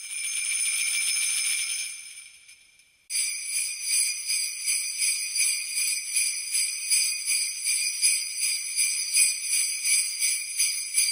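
Sleigh bells jingling: a long shake that fades away, then from about three seconds in a steady rhythmic shaking, about two shakes a second.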